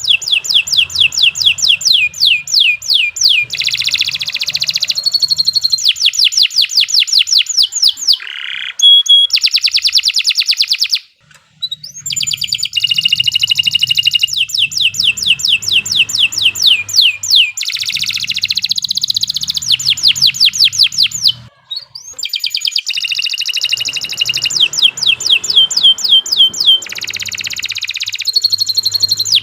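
Domestic canary singing a long, continuous song made of rapid rolling trills, fast runs of evenly repeated high notes, changing from one trill type to the next. The song breaks off briefly twice, about eleven and about twenty-one seconds in.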